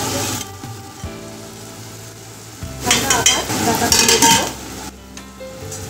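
Food sizzling in hot oil in a wok, with stirring. The sizzling swells loudly for about a second and a half near the middle.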